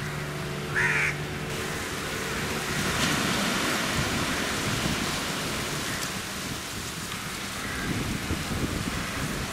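Small waves washing onto a sandy beach, a steady rushing that grows after a couple of seconds. A crow caws loudly about a second in, with fainter calls near the end.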